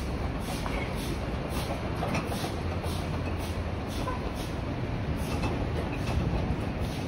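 City street traffic rumble, steady, with the walker's footsteps faintly ticking about twice a second.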